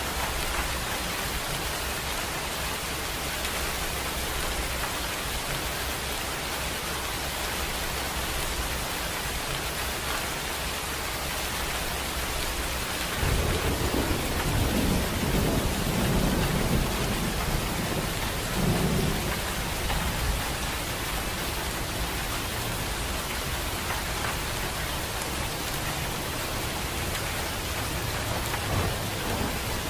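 Steady rain, with a rolling rumble of thunder starting about halfway through that swells a few times before dying away; another rumble begins near the end.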